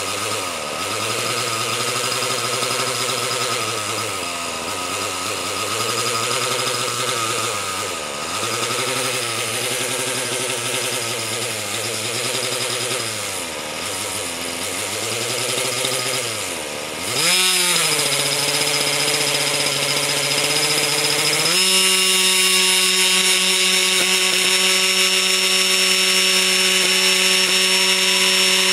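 OS .61SX two-stroke glow engine of a Baron α.60 model helicopter running after fifteen years unused, its speed sagging and picking up again every few seconds. It revs up sharply about 17 seconds in, steps up once more a few seconds later, and then holds a steady, louder, higher note as the rotor spins.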